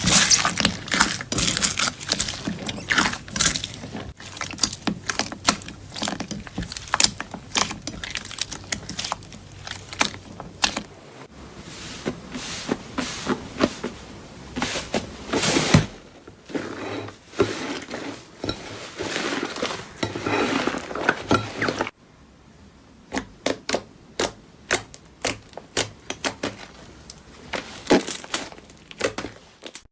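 Slime being squeezed, poked and pressed by hand, making runs of crackling clicks and pops. There are several short clips, with abrupt changes at about 11, 16 and 22 seconds.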